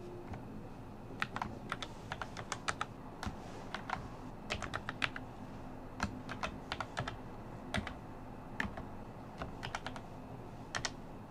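Typing on a computer keyboard: irregular clusters of sharp key clicks, a few keystrokes at a time, with short pauses between.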